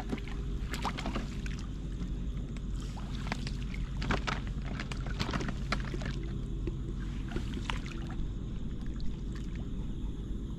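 Shallow seawater splashing and sloshing in many short irregular bursts as people wade and sweep a long-handled scoop net through the water, over a steady low rumble.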